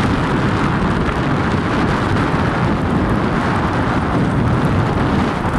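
Wind buffeting the microphone on a moving ship's deck: a loud, steady rumble with no let-up.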